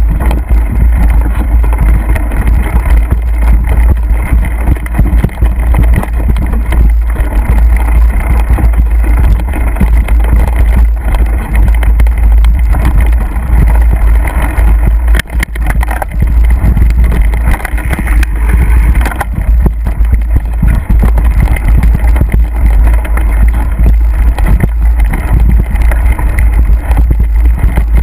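Heavy wind buffeting on the microphone of a camera on a moving mountain bike, with the bike rumbling and rattling over a rough dirt forest trail.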